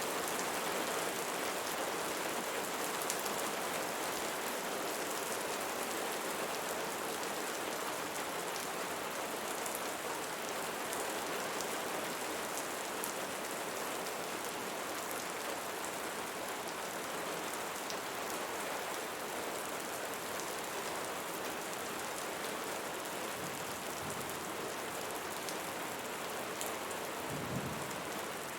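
Steady rain falling: an even hiss with scattered drop ticks. Two brief, faint low rumbles come near the end.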